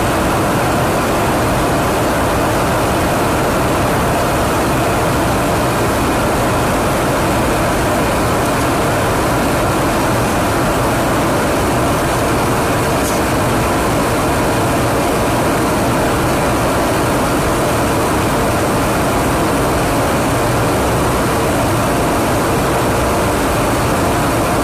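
Steady, loud roar of jet engines and rushing air inside a KC-135 Stratotanker in flight, with a faint steady hum under it.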